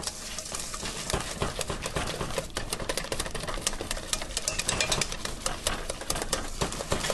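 Wire whisk beating thick chocolate frosting in a metal saucepan: a fast, uneven clatter of clicks as the wires strike the pan's side and bottom.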